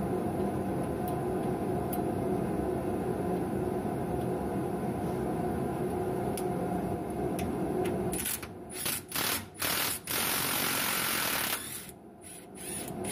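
Cordless impact wrench spinning an anti-seize-coated suspension bolt in and out to clean its threads: a steady mechanical noise for about eight seconds, then a few short trigger bursts and one longer run, a brief pause, and the noise starting again at the end.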